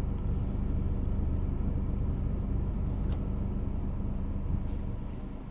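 Toyota Estima's engine idling steadily, a low hum heard inside the cabin, with a couple of faint clicks.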